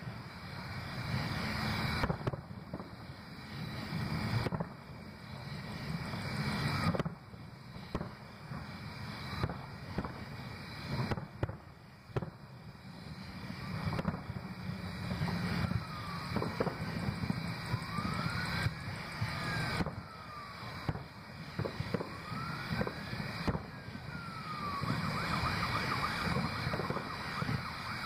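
Aerial fireworks shells bursting in the distance, one boom every few seconds over a constant low rumble. In the second half, high whistling tones that rise and fall run through the booms.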